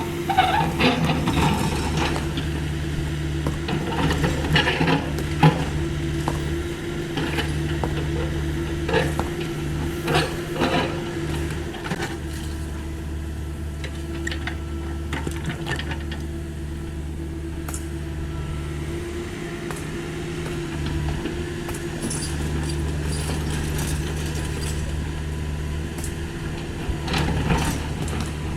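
Caterpillar 305.5E2 mini excavator's diesel engine running steadily while its bucket scrapes and knocks through wall rubble. Broken masonry clatters in repeated bursts through the first half and again near the end.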